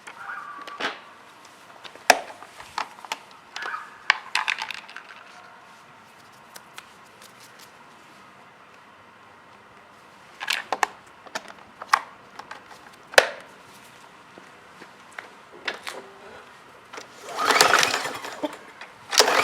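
Scattered clicks, knocks and light metal clatter of parts and tools being handled on a Briggs & Stratton 550EX lawn mower engine. Near the end comes a harsh rasping whir lasting about a second and a half: the recoil starter being pulled to crank the engine.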